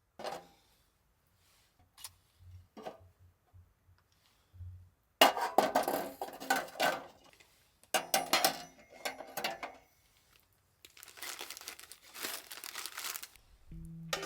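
Cooking-gear handling at a tabletop grill: a few light clicks, then a sudden stretch of clattering and crinkling of packaging and utensils, followed by a couple of seconds of even hiss.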